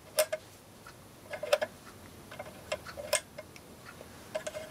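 Timeswitch's solenoid-operated switch mechanism clicking as it is worked by hand: about six irregular clicks, each with a brief ring.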